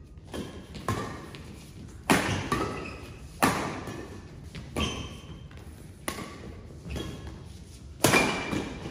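Badminton rackets striking a shuttlecock in a doubles rally: sharp hits roughly every second, the loudest four a bit over a second apart and another near the end, each echoing in a large hall.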